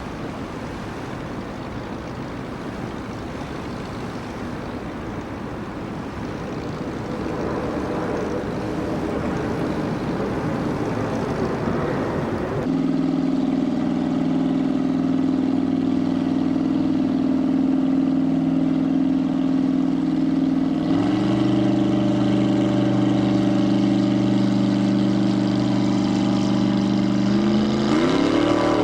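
Engine noise, loud throughout: first a rushing, noisy engine sound that builds up, then, after a sudden change, a steady pitched engine hum. The pitch steps up once about two-thirds of the way in and rises near the end.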